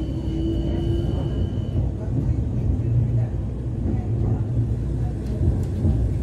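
Ust-Katav 71-911 low-floor tram running, heard from inside the passenger saloon: a steady low rumble. There is a brief rising whine in the first second, and a thin high tone that stops about two seconds in.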